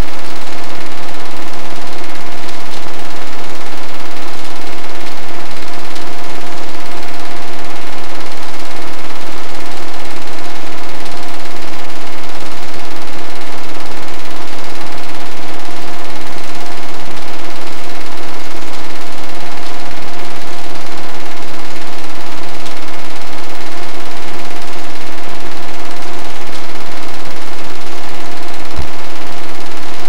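8mm film projector running: a steady, loud mechanical whir with a constant hum, the film transport and motor going without a break.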